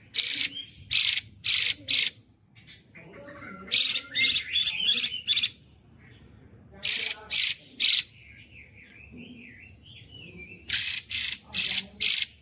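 Female hwamei (Chinese melodious laughingthrush) calling loudly. Clear, ringing notes come in quick bursts of three to seven, with a softer wavering warble between them.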